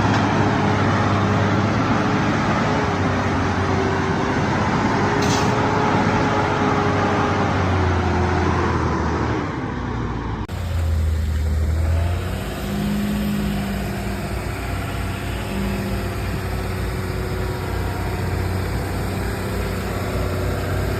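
Heavy logging truck engine running steadily under way, its pitch sagging slightly before the sound changes abruptly about halfway through and carries on as a lower, steady engine drone.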